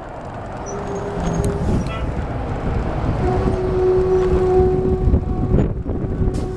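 Bicycle riding noise: a dense rumble of wind and rolling, with a steady mid-pitched hum that sounds briefly about a second in and returns from about three seconds in.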